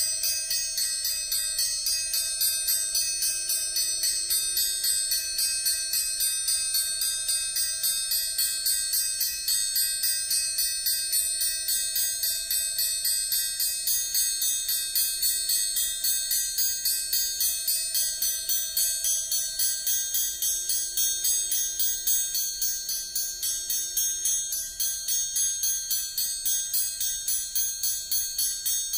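Amplified triangle tapped with a metal beater in a fast, even stream of strokes. Its ringing overtones hold on as a shimmering cluster of high tones, while a lower ringing tone swells and fades as the hand damping the triangle shifts its grip.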